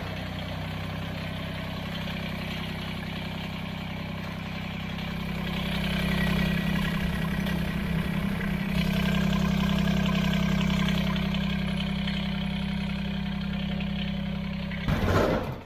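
Kubota BX23s tractor's three-cylinder diesel engine idling steadily, freshly filled with new oil and run so the new oil filter fills before the level is rechecked. It gets louder for a while in the middle and cuts off shortly before the end.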